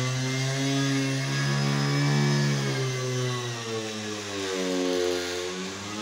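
Handheld electric sander with a square pad running on a marble floor, a steady motor whine. About four seconds in its pitch sags as it is pressed into the stone, and it picks up again near the end.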